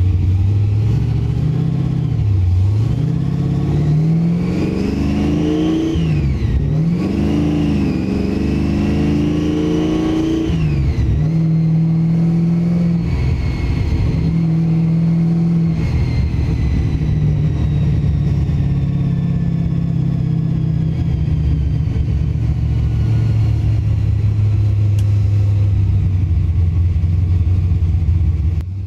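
Supercharged 1955 Chevrolet street rod's Dart Little M V8, fitted with a Dyers 8-71 blower, pulling away and accelerating through the gears of its Tremec five-speed. The revs climb and drop sharply twice, about six and eleven seconds in, then hold at a steady cruise and slowly ease off. A high whine rises and falls with the engine.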